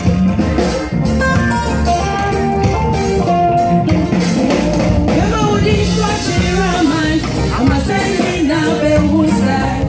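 Praise choir of women singing with live band accompaniment; held instrumental chords lead, and the voices come through strongly about four seconds in.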